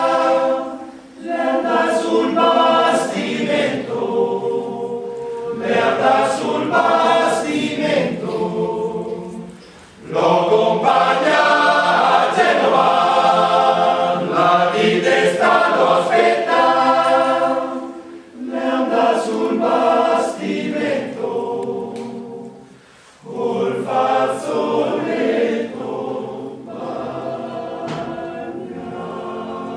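A choir singing in long phrases with brief breaths between them, softer over the last few seconds.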